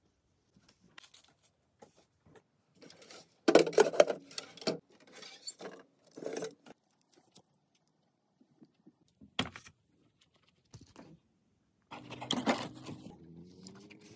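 Scattered handling sounds of food and objects on a table: short clicks and rustles. Louder rustling comes about three and a half seconds in and again near the end, the last with a faint pitched tone under it.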